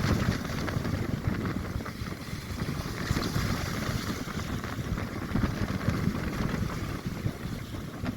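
Storm wind buffeting the microphone over the steady noise of a rough sea.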